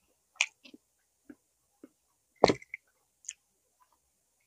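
Close-miked mouth sounds of eating barbecued pork ribs: scattered short wet smacks and clicks of chewing, the loudest about two and a half seconds in.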